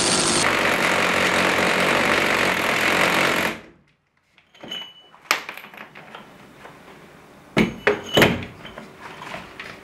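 DeWalt DCH263 cordless rotary hammer drilling into brick with a core bit, running steadily, then winding down and stopping about three and a half seconds in as its battery goes flat. A few short clicks and thumps follow.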